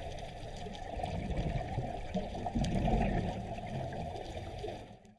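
Steady, low water noise with a few faint clicks, as in an underwater recording, fading out in the last half second.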